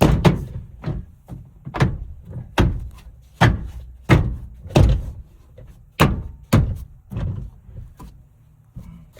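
A hand hitting a 1999 Honda Odyssey sliding door's interior trim panel, about a dozen thumps roughly one every half-second to second, knocking the panel's plastic retaining clips into their holes in the door. The blows grow fewer and weaker near the end.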